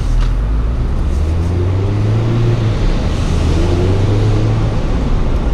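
2017 Mazda MX-5's 2.0-litre four-cylinder engine running steadily while driving, its low hum drifting slightly up and down in pitch, over continuous road and wind noise.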